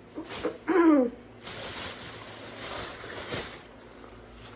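A brief falling vocal sound, then about two seconds of rustling as a packaged item is handled.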